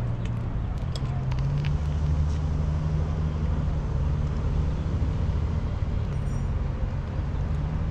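Car engine idling with a steady low hum, a few light clicks and knocks of handling in the first couple of seconds.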